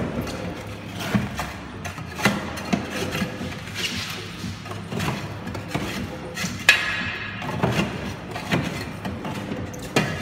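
Repeated sharp knocks at an uneven pace of a hand tool striking packed ice in a car's wheel arch, knocking it loose, with background music throughout.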